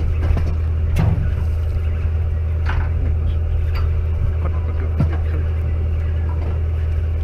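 Fishing boat's engine running with a steady low drone, with two sharp knocks, about a second in and about five seconds in.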